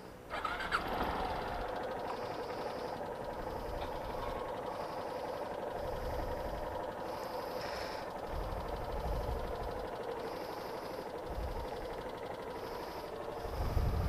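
Yamaha Fazer 250's single-cylinder engine starting about a third of a second in, then running steadily at idle.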